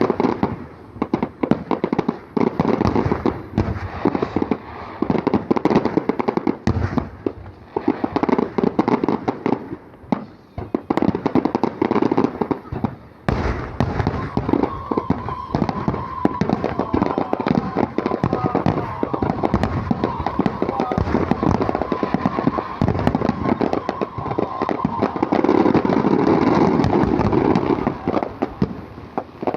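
Fireworks display: a rapid, continuous barrage of bursting shells. It grows denser and louder from about halfway, with a steady tone running through that stretch, and dies away right at the end.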